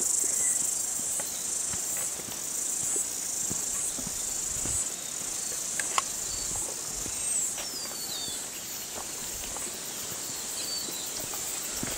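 Steady high-pitched insect chorus in summer bush, with footsteps on a dirt path underneath. A single falling bird whistle sounds about seven seconds in, and a sharp click just before it.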